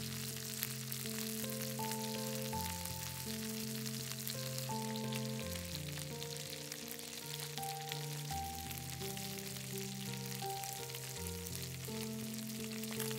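Chicken drumsticks sizzling and crackling in a cast-iron skillet as they brown, with a steady hiss of hot fat under soft background music of held notes.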